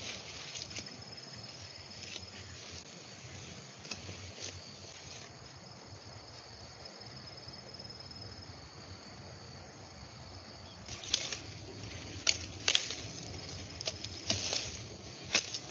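Ramie being harvested by hand: rustling of the leafy stalks, then from about 11 seconds in a run of sharp snaps and cracks as the stalks are cut at the base. A faint steady high insect drone sounds through the first part.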